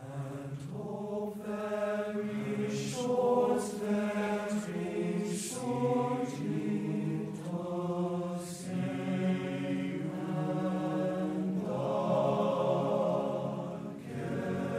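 Background music: a group of low voices chanting in long held notes, with the hiss of sung consonants every second or two.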